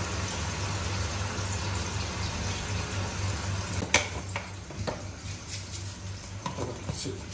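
Kitchen background: a steady low electrical hum under a soft hiss, with a sharp click about four seconds in and a few lighter knocks after it.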